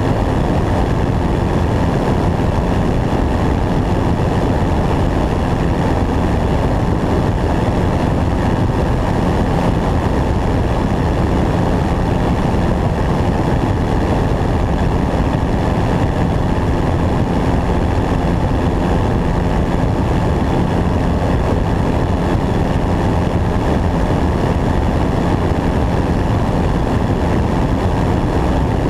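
Steady drone of a light single-engine propeller airplane in flight, mixed with wind rushing over a camera mounted under the wing.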